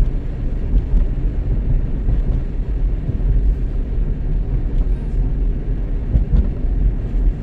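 Steady low rumble of a vehicle driving along a paved road: road and wind noise, with no pitched engine note standing out.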